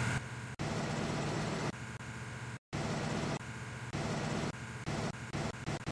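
Steady car engine and road noise, a low hum with hiss, broken by abrupt cuts and one brief moment of total silence about two and a half seconds in.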